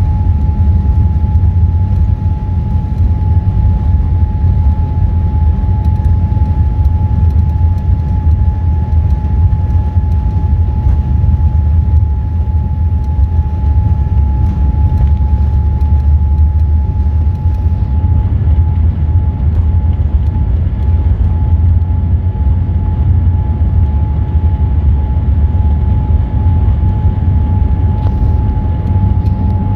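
Cabin noise aboard a Boeing 787-8 Dreamliner with Rolls-Royce Trent 1000 engines: a loud, steady low rumble of engines and airflow with an even rushing hiss. A single steady whining tone holds throughout, having risen in pitch just before.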